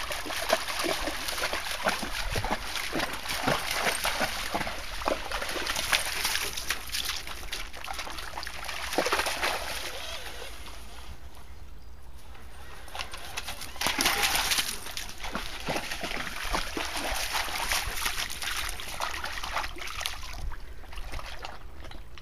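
A dog wading through a shallow stony stream, its legs splashing and sloshing the water in quick, irregular splashes over the trickle of the stream. The splashing eases off about halfway through, then comes back in a loud burst a couple of seconds later.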